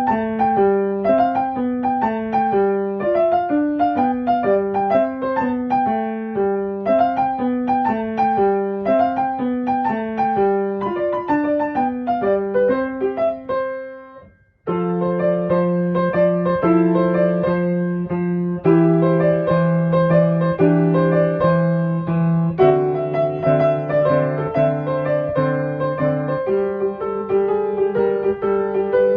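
Background piano music with a steady run of notes. About halfway through it fades out briefly and a new passage starts with held low chords.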